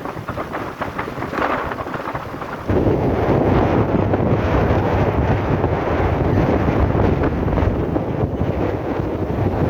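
Strong wind buffeting the microphone at sea, a crackly rushing noise that about three seconds in jumps abruptly to a louder, deeper rumble.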